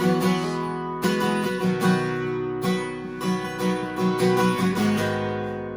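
Acoustic guitar strumming and picking chords in an instrumental passage of a worship song, with no singing.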